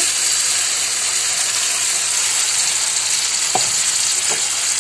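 Onion-garlic paste sizzling steadily as it goes into hot oil with frying spiny parwal (pointed gourd) in a kadhai, stirred with a wooden spatula. Two short knocks come near the end.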